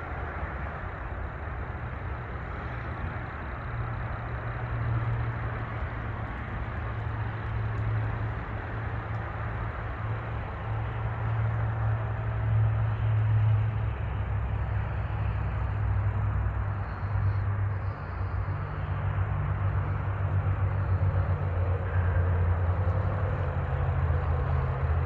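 Steady low rumble of motor traffic and engines, getting somewhat louder about halfway through.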